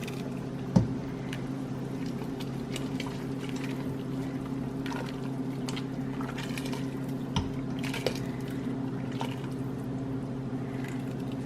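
Uncovered pot of birria consome at a hard boil, bubbling with scattered small pops over a steady low hum. A sharp knock about a second in, and two lighter ones a few seconds later.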